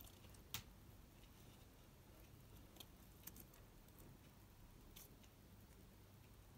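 A tortoise feeding on leaves: faint, scattered clicks of its bites, the sharpest about half a second in, over near silence.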